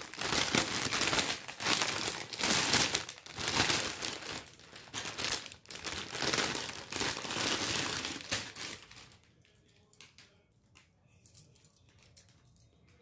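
Thin clear plastic bag crinkling and rustling as a metal hip belt is pulled out of it, dense and uneven for about nine seconds, then stopping, leaving only a few faint clicks.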